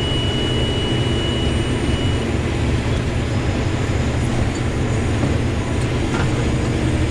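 Combine harvester running steadily while shelling corn: a constant low mechanical drone. A thin high steady whine sits over it for the first two seconds.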